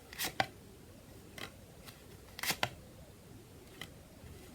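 Tarot cards being handled: a handful of short, quiet card swishes and taps as cards are picked up, turned and laid down, the loudest pair about two and a half seconds in.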